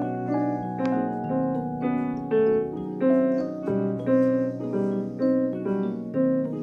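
Background piano music, a gentle melody with notes struck at an even pace, nearly two a second.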